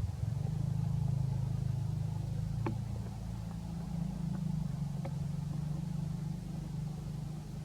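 Steady low engine hum, like a motor vehicle running nearby, with two faint clicks partway through.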